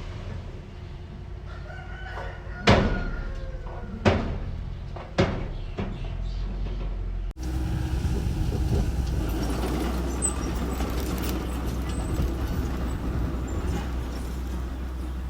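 A rooster crowing over the steady low hum of a working engine, with three loud sharp knocks about a second apart. About halfway through, the sound cuts abruptly to a busier, steady engine-and-machinery noise.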